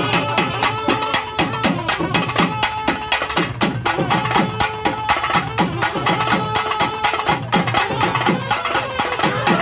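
Traditional temple music: fast, rhythmic drumming, several strokes a second, with a pitched instrument holding steady notes above it.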